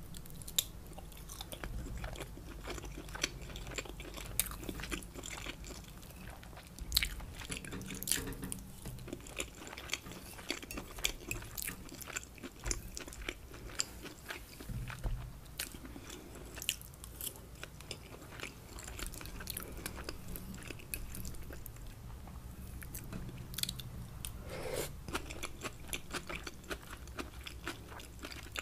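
Close-miked chewing of a mouthful of rice with shrimp and scallops, with many sharp wet mouth clicks and crunches scattered throughout.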